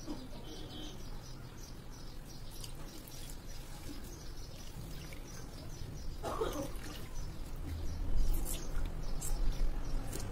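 Coconut milk dripping and trickling into a steel pot as a wet cotton handkerchief full of ground coconut is wrung by hand, with soft handling of the cloth. A few louder low thumps come near the end.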